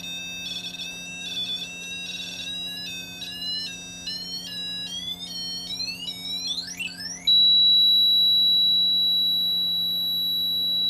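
Electronic motion-triggered music box playing a tune of high, stepping notes that slide upward near the end, then about seven seconds in switching abruptly to one loud, steady high-pitched beep. A faint steady hum lies underneath.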